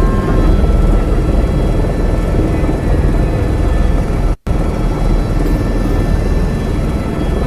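Helicopter engine and rotor noise from inside the cabin, a steady loud drone. It drops out abruptly for an instant about four and a half seconds in.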